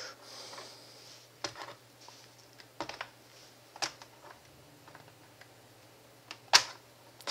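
A few scattered sharp clicks and taps of fingers handling the plastic underside of a laptop, working at its battery cover; the loudest click comes near the end.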